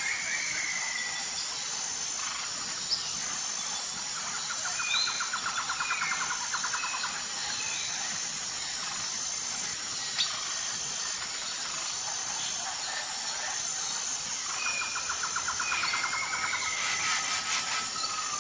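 Birds calling outdoors: short chirps and two rapid trills of a few seconds each, over a steady high-pitched pulsing insect hum.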